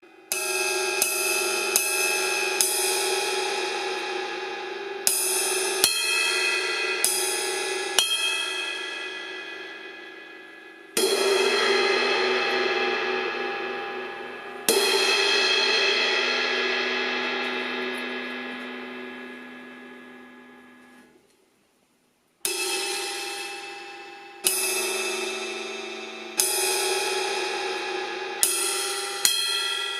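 Paiste 2002 18-inch crash cymbal struck again and again. Groups of quick hits alternate with single crashes. Around the middle, two crashes are left to ring out, the second fading slowly over about seven seconds before the hitting starts again.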